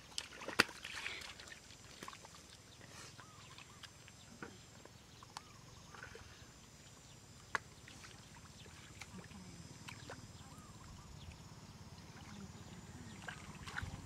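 Quiet splashing and squelching of hands groping through shallow muddy water, with a few sharp slaps, the loudest under a second in and about halfway through. A low hum grows louder near the end.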